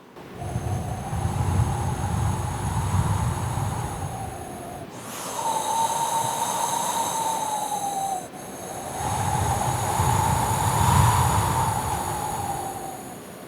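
A person imitating a strong wind with their mouth: three long gusts of breathy rushing, each carrying a whistling tone that swells and sinks again, with short breaks between them.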